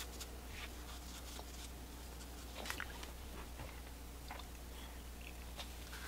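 Faint, scattered scratching and soft ticks of a watercolour brush on paper, over a steady low hum.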